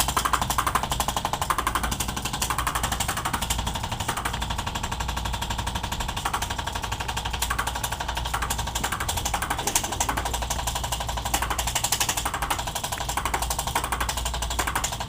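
Handheld electric percussion massager working on the body, a rapid, even mechanical hammering that runs steadily and stops near the end.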